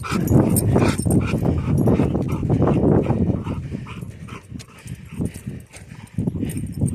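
A dog whimpering.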